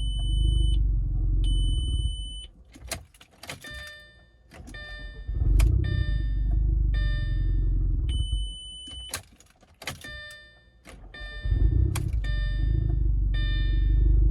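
2002 Audi A4's 1.8-litre turbo four-cylinder engine catching and running for a few seconds, then stalling, twice over before it catches again near the end. The engine keeps stalling on a hard start. Between the runs there are clicks and repeated dashboard warning chimes.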